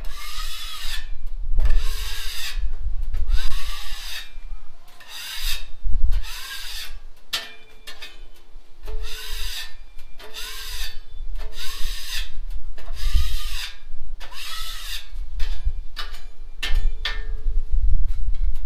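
A hand tool scraped back and forth across the bare steel top of a Blackstone griddle, in about a dozen rasping strokes, roughly one a second.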